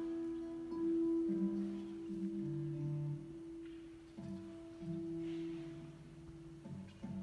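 Classical guitar and grand piano playing together in a slow passage: a high note is held steadily while lower notes change every second or so, with fresh plucked notes about four and seven seconds in.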